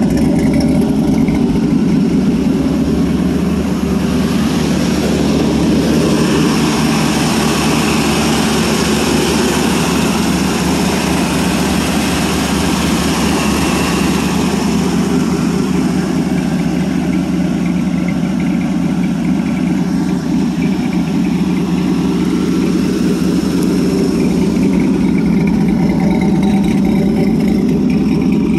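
LS V8 swapped into a Dodge Ram, fitted with a new TSP Stage 4 camshaft, idling steadily while it warms up from a cold start.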